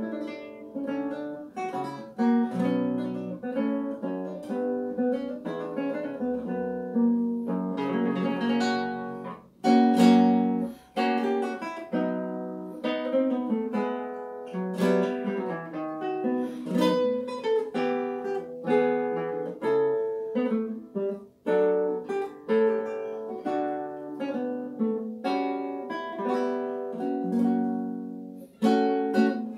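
Solo nylon-string classical guitar played fingerstyle: a continuous passage of plucked notes and chords, with a loud full chord about a third of the way in.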